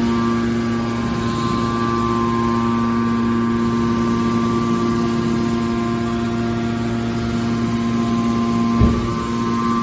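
Hydraulic power unit of a horizontal metal baler running, a steady hum with a held whine, and a single short knock near the end.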